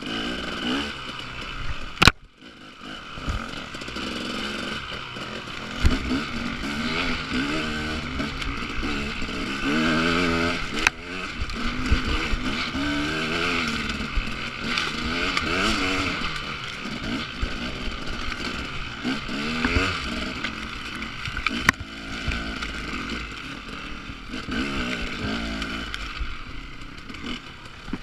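Enduro dirt bike engine revving up and down over and over as it is ridden along a rough singletrack trail. A few sharp knocks come through, the loudest about two seconds in.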